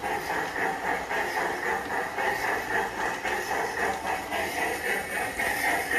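PIKO G-scale model train running around its track loop: a steady motor and wheel-on-rail noise pulsing evenly about two to three times a second.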